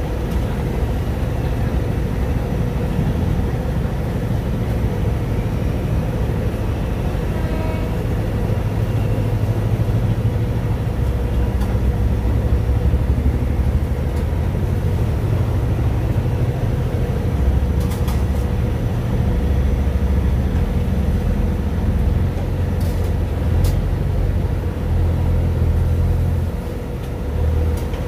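Boat engine running steadily on the river, a continuous low rumble with a steady hum, with a few faint clicks.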